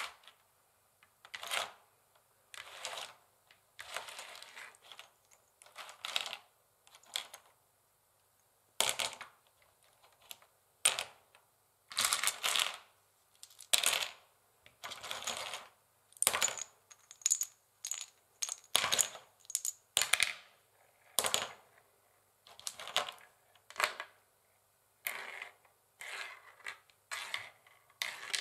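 Long fingernails tapping and scratching on a wooden chessboard, in irregular bursts of quick clicks and short scrapes with brief pauses between.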